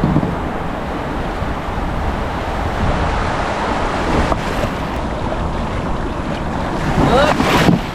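Ocean surf washing and breaking, with wind buffeting the microphone. A brief rising cry cuts through near the end.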